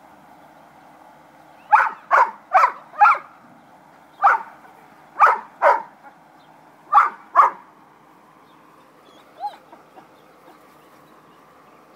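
Puppy barking in play: a quick run of four short barks, then single and paired barks, about nine in all, with one fainter yip near the end.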